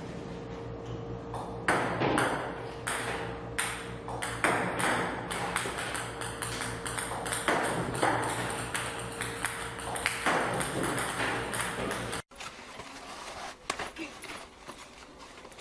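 Table-tennis balls clicking rapidly on a table-tennis table, fed by a ball-throwing robot, over a steady machine hum. It all stops abruptly about twelve seconds in.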